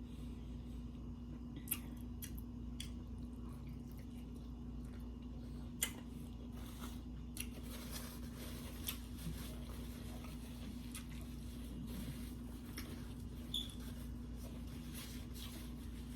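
A person eating tacos: soft wet chewing and scattered sharp mouth and lip clicks, heard up close, over a steady low hum.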